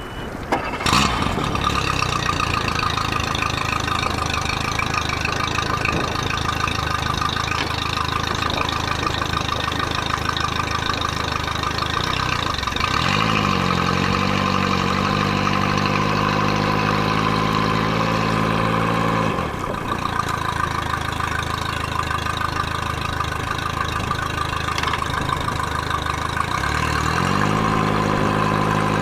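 Mercury 60 hp outboard motor starting about a second in and then running steadily, its engine note stepping up in pitch twice, once midway and again near the end, and settling back in between. This is a test run after the lower unit was rebuilt.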